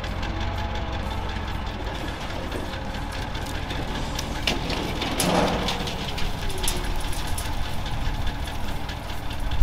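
A 1986 Ford F-800 dump truck's engine running steadily while it drives the hydraulic hoist, the dump bed raising. A few short clicks come about halfway through.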